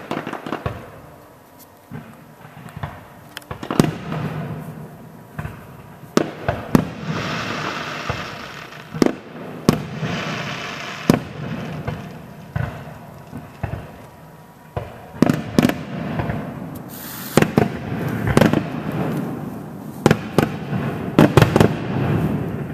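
Fireworks display: many sharp bangs of bursting shells, some coming in quick clusters, over a continuous rushing noise that swells around the middle and again near the end.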